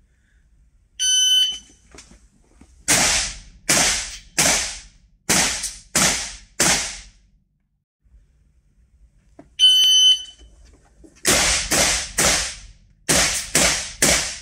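Shot-timer beep, then six shots from a Stgw 90 (SIG 550) 5.56 mm rifle about 0.7 s apart; a second beep a few seconds later starts another six shots fired faster, about half a second apart.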